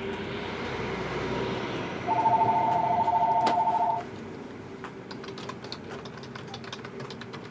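A loud two-tone electronic ringing signal with a fast trill, lasting about two seconds, starts about two seconds in. Light clicks follow, like keyboard typing.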